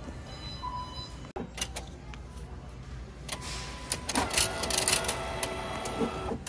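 Bill acceptor of an NCR self-checkout kiosk drawing in a $20 note: a short motorised whir with clicks about four seconds in, the loudest sound here. A few short electronic beeps sound in the first second.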